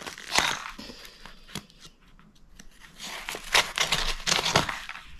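Small scissors snipping through a yellow mailer envelope, a few sharp cuts in the first two seconds, then the envelope crinkling and rustling as it is pulled open.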